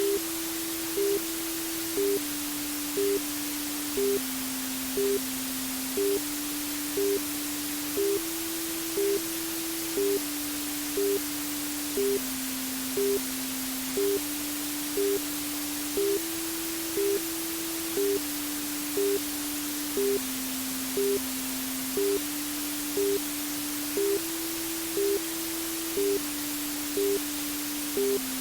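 Steady white-noise hiss for lulling a baby to sleep, with a soft electronic tone underneath that steps between a few low pitches every two seconds and a short, slightly higher beep about once a second.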